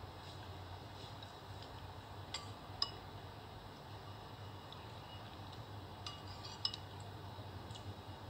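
Metal spoon clinking against a dish: a few sharp, faint clinks, two close together about two and a half seconds in and another pair about six seconds in.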